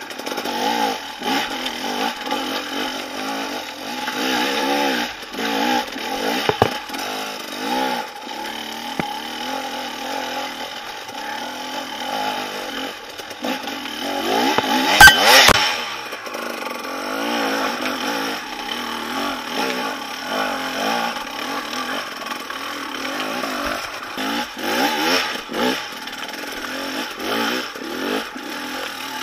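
Dirt bike engine revving up and down in short bursts as it climbs over rocks, with a sharp, loud clatter about halfway through.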